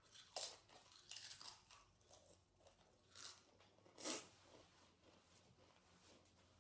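Faint crunching of a Doritos tortilla chip being bitten and chewed, several crisp crunches in the first four seconds, then fading out.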